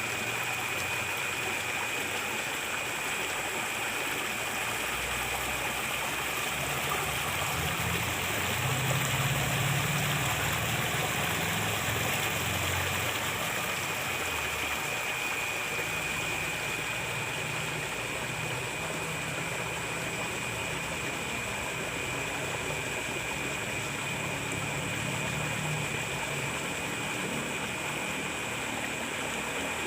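Water running steadily in a ditch swollen by rain, with a thin high steady tone over it throughout. A low rumble swells in from about five seconds in and fades by about fifteen seconds.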